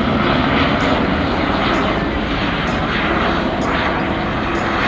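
Helicopter engine and rotor running with a loud, steady noise.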